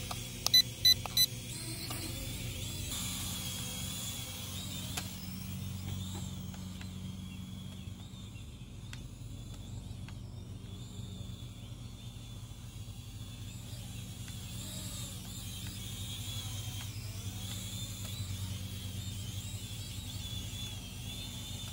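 Q10 mini camera drone's small propellers buzzing in flight, the whine wavering up and down as the throttle changes. Three short beeps sound about half a second in.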